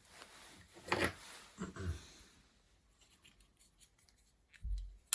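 Handling noises as a metal leadscrew is picked up and turned over: scraping and rubbing about a second in and again shortly after, then a dull low thump and small clicks near the end.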